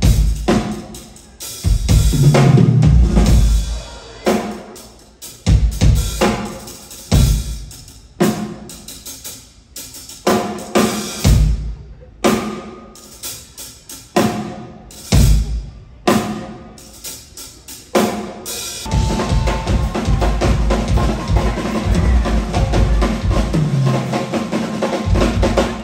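Live stage percussion with drum-kit hits, bass drum and snare, from a tap-dance and percussion show. Loud separate hits and short flurries break up by pauses, then from about 19 seconds in the drumming runs on without a break.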